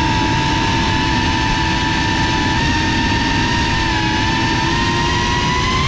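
GEPRC Cinelog 35 ducted cinewhoop FPV drone's brushless motors and propellers whining at a steady high pitch over a low rushing noise. The pitch sags slightly and then climbs near the end as the throttle changes.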